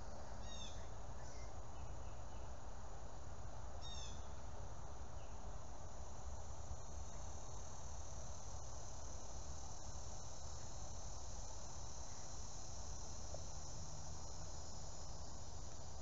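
Steady high buzzing chorus of insects over a low steady rumble, with two short runs of high falling chirps, one just after the start and one about four seconds in.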